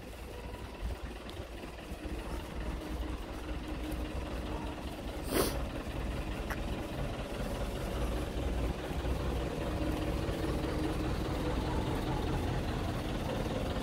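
Low, steady hum of a vehicle engine running nearby, growing slowly louder, with one short burst of hiss about five seconds in.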